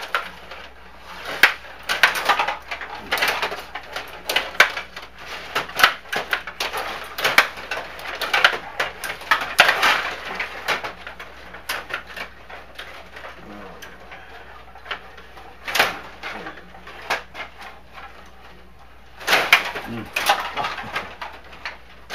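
Stiga rod hockey game in play: plastic rods sliding and spinning, the players and puck clacking against each other and the boards in irregular bursts of clicks, with a couple of quieter stretches.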